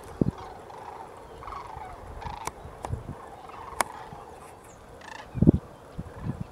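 Sandhill cranes calling in flight: a flock's rolling, rattling bugles that waver around one pitch. A few sharp clicks, and a loud low thump on the microphone about five and a half seconds in.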